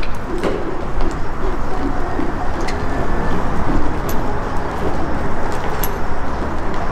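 Wind buffeting a camera microphone: a steady low rumble with a few scattered light clicks.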